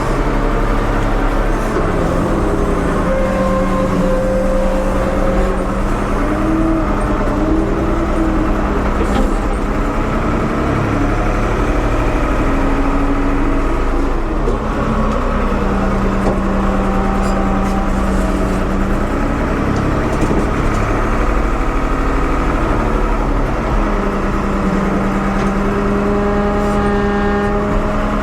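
Ford 550 backhoe's engine running steadily, its pitch dipping and rising every few seconds as the load changes.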